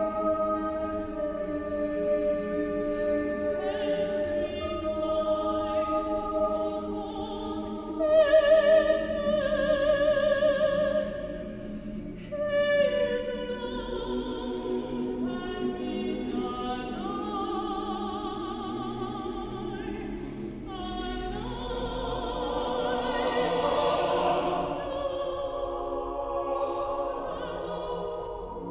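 Unaccompanied mixed chamber choir singing long held chords with vibrato, the voices shifting slowly from chord to chord; it is loudest between about eight and eleven seconds in.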